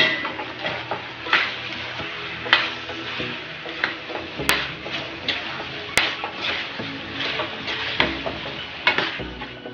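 Metal spoon stirring and scraping through pork, chilies and thick coconut-milk sauce in a metal wok, as the freshly added chilies are mixed in, with uneven scrapes against the pan about once a second and two sharp clicks in the middle.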